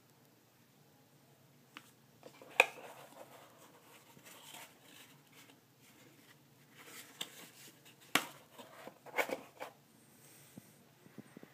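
Handling noise of Magpul MBUS polymer back-up sights and their cardboard box: soft rustling with a few sharp knocks and clicks, the loudest a couple of seconds in and two more near the end.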